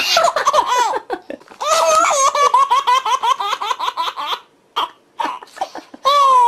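Laughter in a high, childlike voice, in quick repeated giggles, with a short pause about four and a half seconds in.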